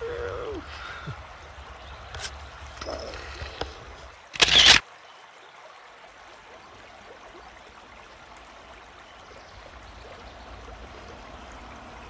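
Quiet river water trickling and lapping around a paddleboard. A brief vocal sound comes at the start, and a single short sharp knock about four and a half seconds in.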